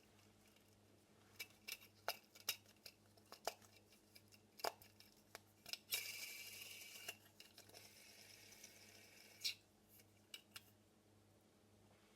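Faint clicks and taps of a pop-it fidget spinner being handled. About six seconds in, a soft whirring rattle starts as it spins, then fades out over about three seconds.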